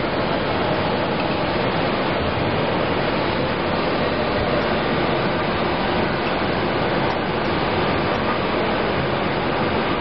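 Semi-automatic folder gluer for corrugated cardboard boxes running steadily: an even rushing noise from its belts, rollers and motors, with a faint steady hum and no separate knocks.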